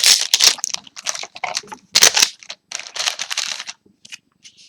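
Crinkling and rustling of trading card booster packs and cards being handled, in a run of short bursts that dies down after about four seconds.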